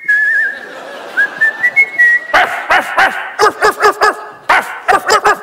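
A man's mouth-made sound effects: whistling, the first note warbling, then from about two seconds in a quick run of barks in bursts of several, about four a second, imitating two dogs.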